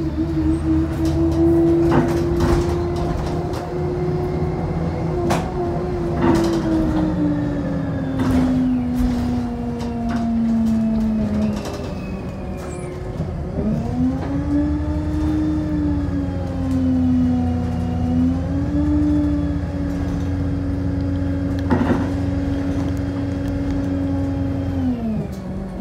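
Bus engine and drivetrain: a steady low hum under a whine that slowly falls in pitch, breaks off, then rises again and holds before dropping near the end. Scattered knocks and rubbing from the phone being handled.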